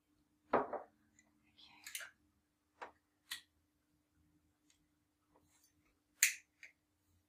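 A handful of short, irregularly spaced clicks and knocks, the first the loudest, over a faint steady low hum.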